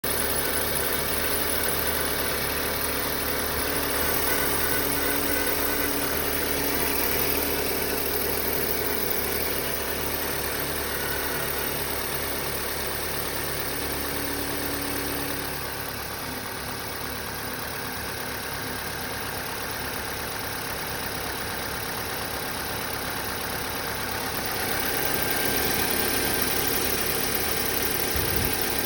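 Opel A16XER 1.6-litre four-cylinder petrol engine idling cold, with a thin whistle from the drive-belt tensioner pulley over the running. The engine level drops a little about halfway through and rises again near the end.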